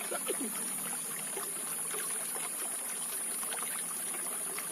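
Waterside ambience: a steady high-pitched insect drone over faint trickling water, with a few light ticks.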